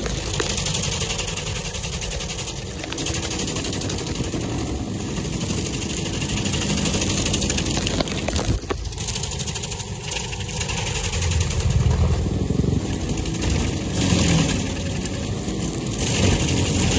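Vermeer stump grinder running under load, its cutter wheel grinding into a stump and throwing wood chips and dirt: a dense engine-and-cutting noise that swells and eases.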